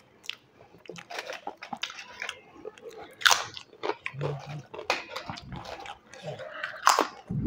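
Close-up mouth sounds of crisp food being bitten and chewed: a run of crackly crunches, with the sharpest bites about three seconds in and again near the end.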